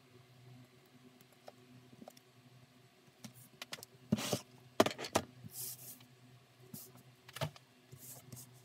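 Handling noises of leatherwork: a blue leather strip and a small plastic tool being worked on a poly cutting board, giving scattered light clicks and taps, with a burst of rubbing and knocking about four to five seconds in as the strip is lifted and moved, and another knock near the end. A faint low hum sits underneath.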